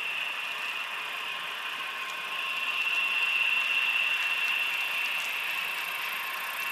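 HO scale model diesel locomotives running slowly on the layout, with a steady high electric-motor and gear whine over the hiss of wheels rolling on the rails. The whine swells louder for a couple of seconds, from about two and a half seconds in, as the locomotives pass close.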